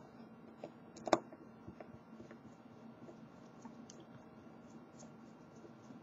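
Faint scattered clicks and taps from a Brinks deadbolt lock cylinder and small metal tools being handled, with one sharper click about a second in.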